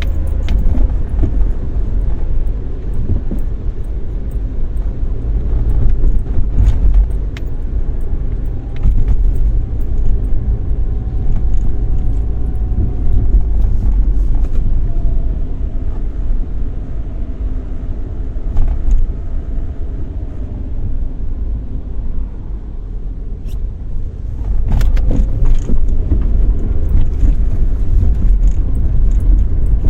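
A car driving, heard from inside the cabin: a steady low rumble of engine and road noise, with a few brief clicks or rattles and a faint whine around the middle.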